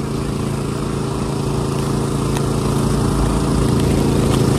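Steady drone of an engine or motor running at a constant speed, a low hum with several unchanging pitches, growing slightly louder toward the end.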